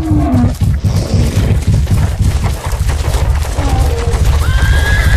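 A stampede of large hoofed animals: a dense, continuous rumble of many heavy, rapid hoofbeats. A high, held call with several overtones starts near the end.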